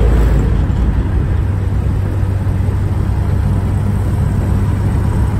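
Old car's engine running steadily at road speed with tyre and road noise, heard from inside the cabin.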